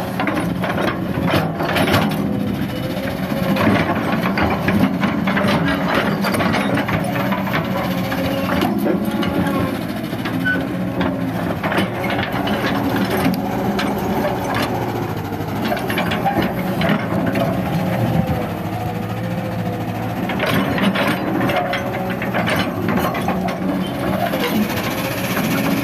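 Kobelco hydraulic excavator's diesel engine running steadily under load, with a tone that rises and falls as the arm and bucket work. Stones knock and scrape against the toothed bucket as it digs into rocky soil.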